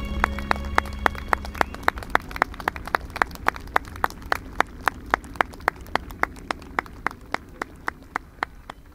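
A music track fading out: held notes stop about two seconds in, leaving an evenly paced clip-clop percussion of about four clicks a second that fades away.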